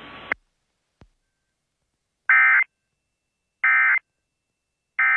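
Emergency Alert System end-of-message code: three identical short bursts of screeching SAME digital data tones, about a second and a third apart, the first about two seconds in. It is preceded by a faint broadcast hiss that cuts off with a click just after the start.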